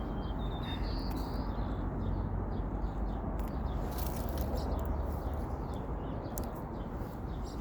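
A small bird chirping a few short times in the first second or so, over a steady low rumble, with a few faint clicks later on.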